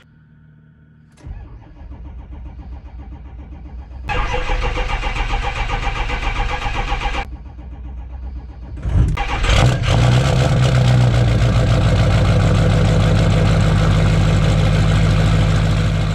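2005 Ford F350's 6.0 Powerstroke V8 turbodiesel cranking over at length on the starter, then firing up about nine seconds in and running steadily. The long crank is a symptom the owner traces to a failing fuel injection control module (FICM) that puts out too little voltage to fire the injectors properly.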